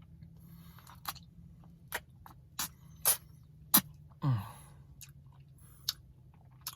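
Mouth sounds of someone eating a spoonful of ice-cream Blizzard: a series of short wet lip and tongue smacks, with a brief falling "mm" a little past four seconds in.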